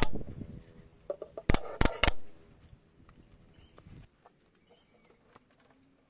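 Pneumatic nail gun firing into wood: a sharp shot right at the start, then three quick shots about a second and a half in. Faint scattered ticks follow.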